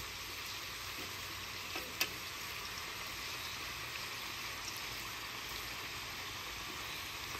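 Hand-cut potato fries deep-frying in peanut oil in a cast-iron skillet during their second, crisping fry: a steady bubbling sizzle. A single sharp click sounds about two seconds in.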